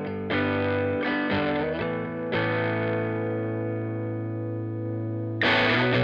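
Squier Vintage Modified Jazz Bass played through a Killer Otter Electric Party Animal fuzz pedal into an AC30 amp modeler: a few quick fuzzed notes, then one note held for about three seconds, and a louder, brighter note struck near the end.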